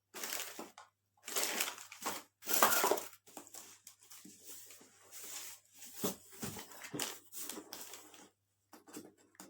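Packaging being handled during an unboxing: irregular crinkling, rustling and scraping of wrapping and a box, loudest in two bursts in the first three seconds.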